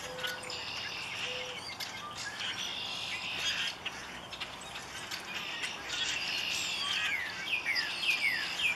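Male northern cardinal singing: a quick series of clear whistled notes, each sliding down in pitch, starting about seven seconds in. Before them is a steady high-pitched background chorus.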